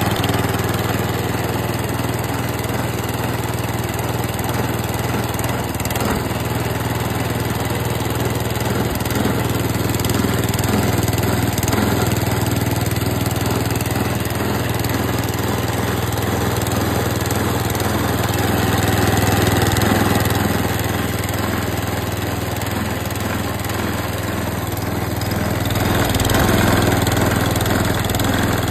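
Qualcast Classic Petrol 35S cylinder mower's single-cylinder petrol engine running steadily, growing slightly louder twice, once about two-thirds of the way through and again near the end.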